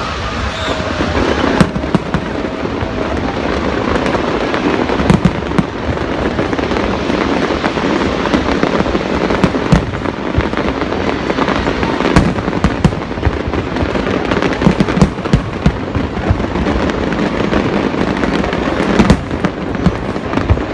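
Fireworks display: a continuous crackling rumble with many sharp bangs going off throughout.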